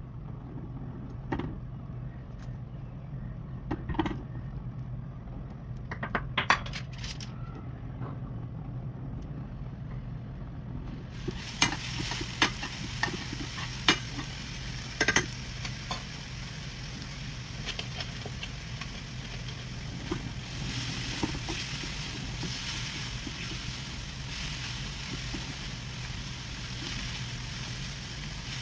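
Food sizzling in hot oil in a frying pan. The sizzle starts about eleven seconds in and grows fuller after about twenty seconds. Scattered clinks and scrapes of utensils against the pan are heard, over a steady low hum throughout.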